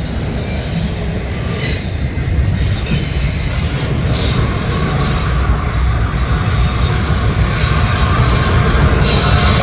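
The tail end of a loaded autorack freight train rolling past: a steady, loud low rumble, with high wheel squeal coming and going.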